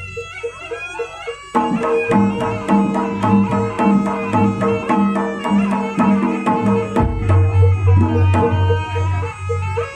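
Live Javanese traditional ensemble music: rapid hand-drum (kendang) strokes under a sustained pitched melody line and a repeated metallic tone. The band gets fuller and louder about a second and a half in.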